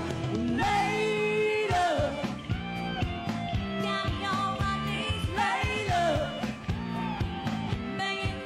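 Rock song with a lead singer over the band, the voice rising and falling in sung phrases above steady low bass notes.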